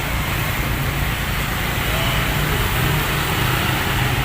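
Steady low engine-like hum under an even rushing noise, with no shot or impact heard.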